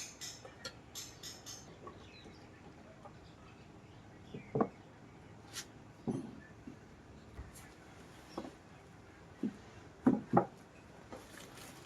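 Workshop handling sounds: a brief rattling jingle at the start, then scattered dull knocks and taps, several seconds apart, with two close together near the end.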